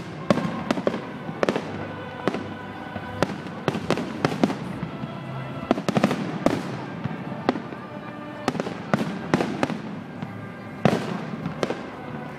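Aerial fireworks display: shells bursting in quick, irregular succession, sharp bangs about two a second.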